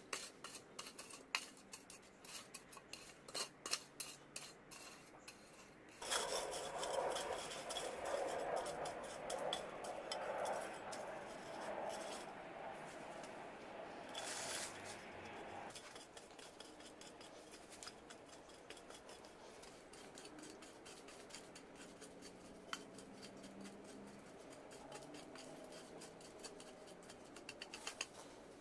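Metal hoe blade cut from an old frying pan chopping and scraping through dry garden soil and weed roots. Quick strokes come first; from about six seconds in there is a longer, louder stretch of scraping, then quieter, occasional scrapes.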